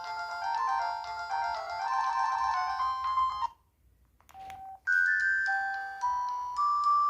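ZTE X175 mobile phone playing its built-in ringtones. A busy melody of several notes at once cuts off about three and a half seconds in. After a short gap with a few faint clicks and a brief beep, a second ringtone starts: a slower tune of long held notes.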